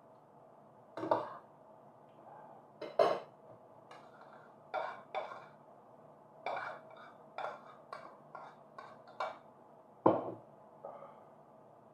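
Spoon and fork clinking and scraping against glass and ceramic bowls and plates during a meal, with rice being spooned from one bowl into another. About a dozen short, sharp clinks come at uneven intervals, the loudest about ten seconds in.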